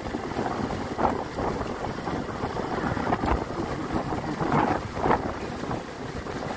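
Wind buffeting the microphone over the low, steady rumble of a two-wheeler being ridden slowly.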